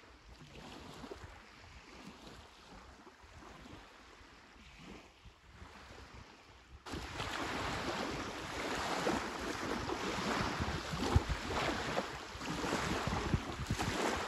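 Small sea waves lapping and washing onto the shore, faint at first, then suddenly louder about seven seconds in, with some wind on the microphone.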